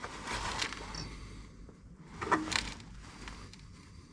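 Faint rustling and light handling noises of someone working with small car parts and tools, with one short louder sound about two and a half seconds in.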